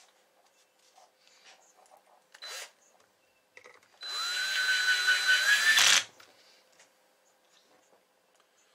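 Cordless drill-driver running a screw into the aluminium heatsink case of a CB amplifier, fastening the case back together. The motor whines up in pitch, runs steady for about two seconds, then stops suddenly. A brief noise comes a second or so before it.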